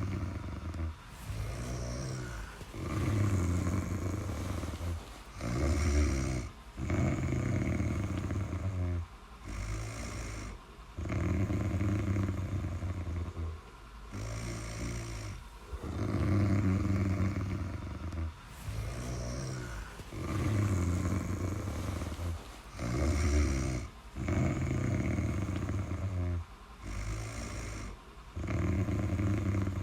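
Snoring in a steady, repeating rhythm: a longer snore of about two seconds, then a shorter one of about a second, over and over with short gaps between.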